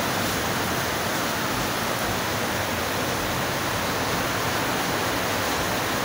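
Steady, unbroken hiss of air from a refrigerator compressor rigged as an air compressor for spray painting.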